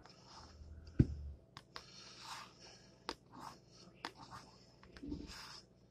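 A coin scratching the coating off a scratch-off lottery ticket in short, repeated scrapes, with a sharp knock about a second in.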